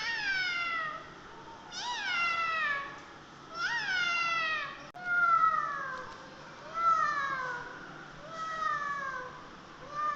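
A cat meowing over and over, about six calls one after another, each a drawn-out meow that falls in pitch.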